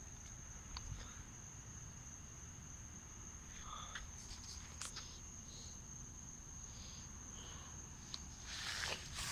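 Steady high-pitched trill of night insects, with a few light clicks and, near the end, rustling footsteps on grass.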